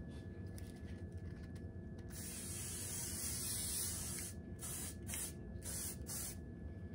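Aerosol hairspray can hissing as it sprays over a braid: a couple of faint short puffs, then one long spray of about two seconds, then a string of short spurts.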